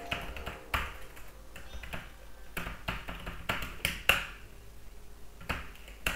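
Computer keyboard being typed on: irregular, uneven clicks of single keystrokes, with short pauses between bursts.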